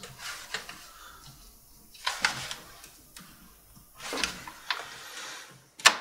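A laptop hard drive in its caddy being pulled out of its drive bay: scattered light clicks and knocks of the drive and case being handled, with one sharp click near the end.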